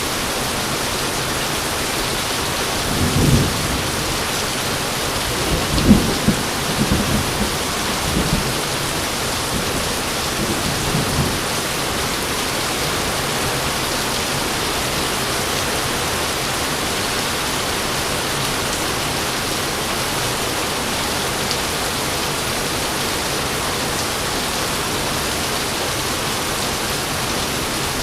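Steady heavy rain hissing, with rolls of thunder rumbling low: one about 3 seconds in, then a longer, cracking roll from about 5 to 11 seconds in, loudest near its start.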